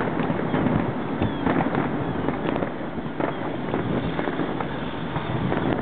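Aerial fireworks display: an irregular, rapid stream of bangs and crackling from bursting shells.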